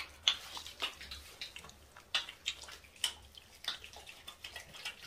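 Wet, foam-covered hands rubbing and patting face wash lather over the face: faint, irregular little wet smacks and squishes, several a second.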